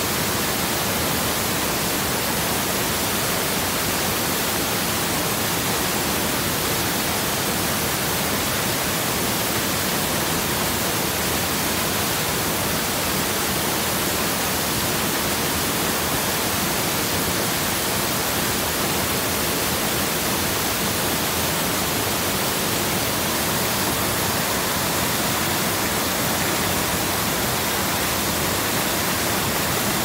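Small waterfall pouring over boulders into a rocky pool: a steady, unbroken rush of falling and splashing water.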